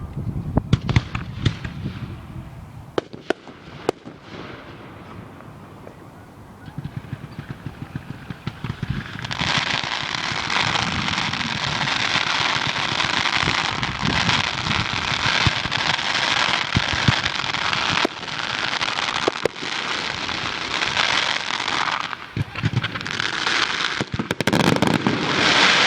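Fireworks going off: scattered sharp bangs and pops, then from about nine seconds in a dense, continuous crackling with many bangs underneath.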